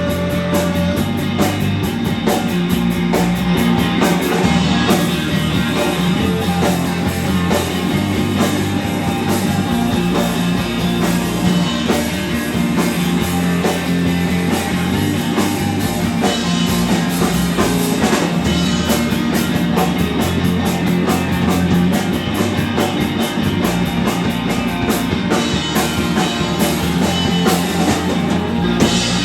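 Rock band playing a song live, loud and continuous, with electric guitar and drums.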